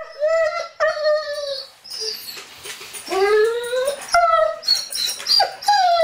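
Doberman whining: a string of high, gliding whines with short breaks, among them a longer whine that rises in pitch about three seconds in.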